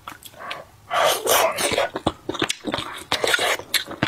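Close-miked mouth sounds of eating: two noisy slurps, about one and three seconds in, with small clicks between them.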